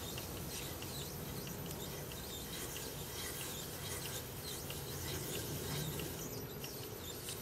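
A wood lathe turning slowly while a cloth is held against the spinning wood, rubbing Howard Feed-N-Wax finish into it: a steady rubbing.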